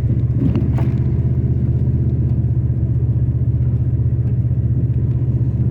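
Vehicle's engine and tyres on a snow-covered road, a steady low drone heard inside the cabin while climbing a hill in four-wheel drive, with a faint click about a second in.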